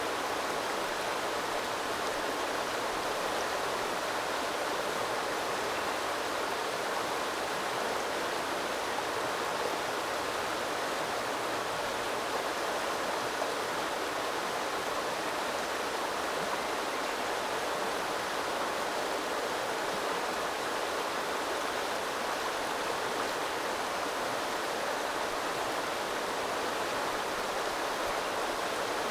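Small river flowing steadily, an even rushing of water with no change in level.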